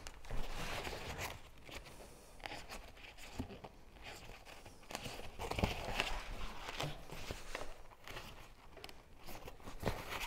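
Hands working kayak-covering fabric over a frame while sewing it: irregular rustling and crinkling of the fabric, with scattered clicks and knocks as stitches are pulled tight.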